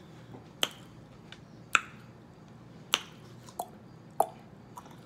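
Lip smacking while eating: five sharp, wet mouth clicks spaced about a second apart, with a few fainter ones between.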